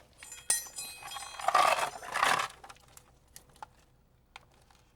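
Utility knife scoring a wooden shingle along a square: a sharp click, then about a second of loud scraping cuts, then a few light ticks.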